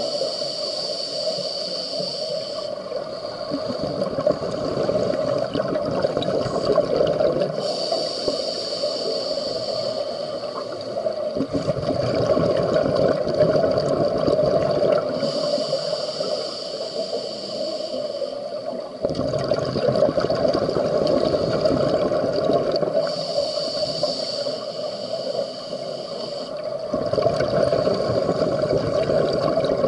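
Scuba diver breathing through a regulator underwater: a hissing inhale alternating with a longer rush of bubbling exhale, about four slow breaths.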